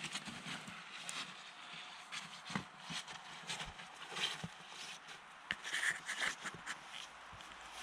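Footsteps walking through thin snow and low forest undergrowth, a run of uneven steps.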